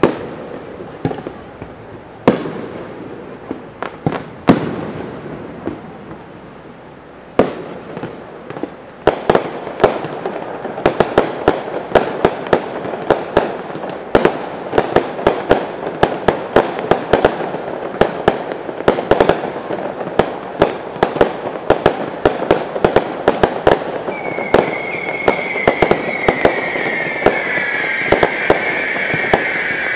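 Fireworks display: a few separate bangs at first, then from about seven seconds in a rapid, dense string of sharp bangs, several a second, as many shells burst together. Near the end a high whistling tone slowly falling in pitch sounds over the bangs.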